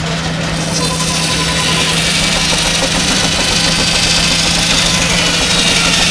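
Fowler single-cylinder traction engine running steadily under load, driving a sawbench by a flat belt: a steady hum with a dense hiss over it that grows a little louder.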